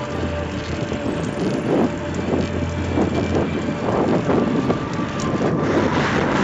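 Wind buffeting the microphone and road noise from a recumbent trike rolling along a paved road, swelling and fading unevenly. Near the end a Ford Mustang convertible passes close alongside, its tyre and engine noise rising.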